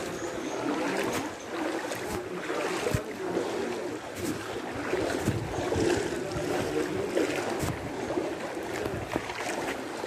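Floodwater sloshing and splashing around someone wading through it: a continuous churning with irregular sharper splashes.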